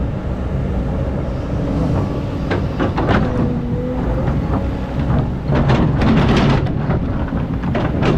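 Excavator engine running with a steady low rumble and a faint wavering whine. Sand and stones scrape and clatter around three seconds in, again about six seconds in, and near the end.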